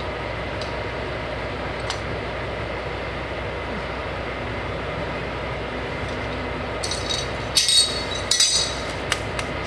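Steady engine rumble with metallic clinks, clanks and scrapes from about seven seconds in, as steel pipe wrenches knock against a diesel nozzle's hose fitting and are set down on the pavement.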